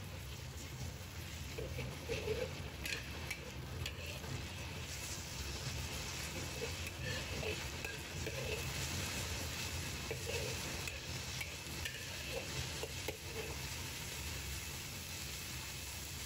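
Minced pork sizzling in hot lard with garlic and dried chillies in a wok, stir-fried with a metal spatula that scrapes and taps against the wok now and then over a steady frying hiss.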